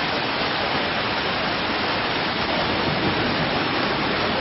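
Heavy downpour: rain falling in a steady, even hiss.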